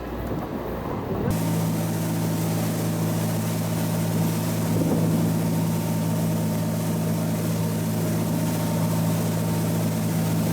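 Yamaha UF33 boat's engine running at a steady speed, a constant low drone over a steady rush of noise. The steady drone begins abruptly about a second in.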